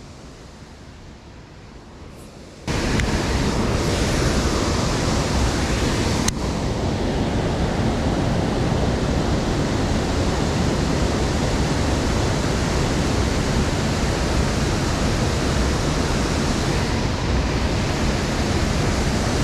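Waterfall and high, fast creek water rushing steadily, suddenly much louder about three seconds in.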